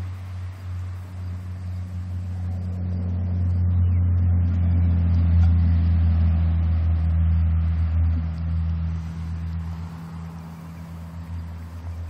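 A low, steady engine drone that grows louder through the middle and eases off near the end.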